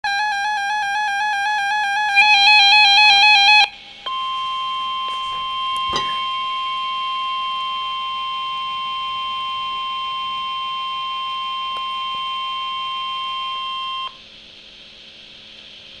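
NOAA weather alert radio sounding a severe thunderstorm warning. First its warbling alert beeps, which get louder about two seconds in and stop after about three and a half seconds. After a short break comes the steady National Weather Service warning alarm tone for about ten seconds, with a single click about six seconds in. A faint hum follows.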